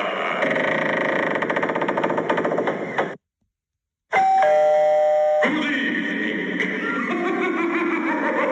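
Gemmy Halloween 2015 eyeball doorbell prop playing its recorded sounds. A dense, rattling spooky sound effect cuts off about three seconds in. After a second of silence comes a short doorbell chime of about a second, then another eerie sound clip with sliding pitches.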